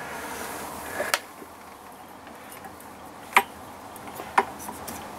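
Three short sharp clicks: one about a second in, the loudest a little past halfway, and one more a second later. They come from a hand touching and shifting the metal parts of a Lister D engine.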